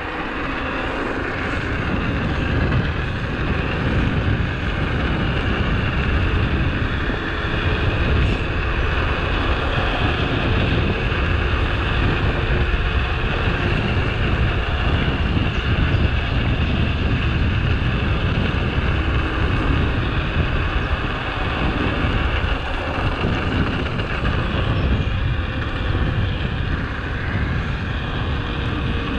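Wind rushing over the camera microphone with the hum of mountain bike tyres rolling on a tarmac lane, growing louder over the first few seconds and then holding steady.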